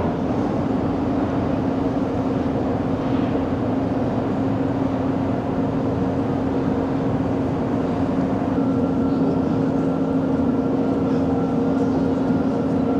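Steady drone of a cruise ship's machinery and ventilation, a constant low hum over a rushing noise, with a fainter higher tone joining about two-thirds of the way through.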